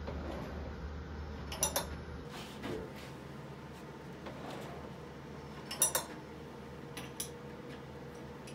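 A few sharp metallic clinks of tools and steel parts handled at a small benchtop metal lathe while a chuck adapter is being removed. The loudest clink comes about six seconds in, and a low hum cuts out about two seconds in.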